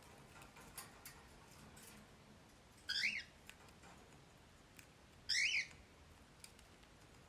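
A pet parrot gives two short upward-sweeping chirps, about two seconds apart, with a few faint clicks before them.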